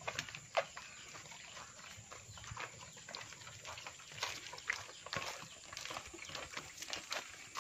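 Footsteps on a dirt path with irregular knocks and slosh from hand-carried buckets and a plastic jerrycan of liquid, amid short animal calls.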